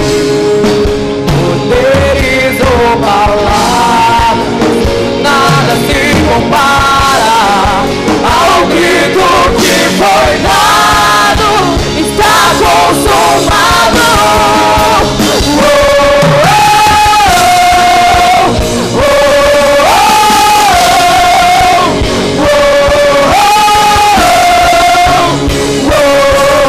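Live Christian worship band playing a rock-style song: singers on microphones over drums and keyboard. In the second half the vocal repeats one short held phrase that steps up and back down, about every three and a half seconds.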